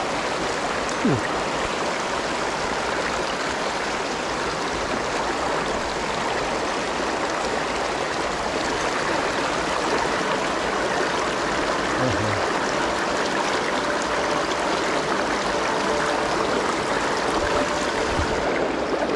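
Small mountain stream running over rocks in a shallow riffle: a steady, unbroken rush of water.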